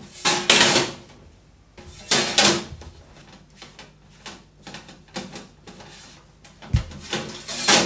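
Wad of cloth rubbed briskly across an inked engraving plate in scratchy swishing strokes: three loud ones near the start, after about two seconds and near the end, with shorter, softer strokes between and a dull knock just before the last. This is the wiping of an intaglio plate, clearing surface ink so that it stays in the engraved lines.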